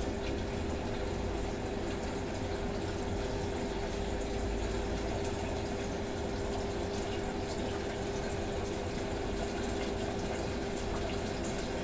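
Fish deep-frying in plenty of hot oil: a steady sizzle with scattered small pops, over the constant hum of the range hood fan.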